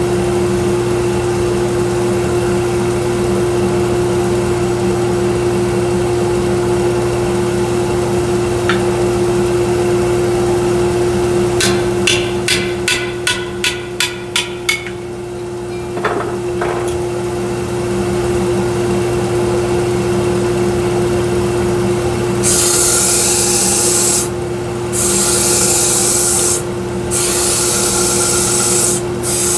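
A 1x42 belt sander running steadily with a constant hum. Near the middle there is a quick run of about a dozen sharp taps, and in the last quarter wood is pressed against the belt in several long rasping sanding passes with short breaks between them.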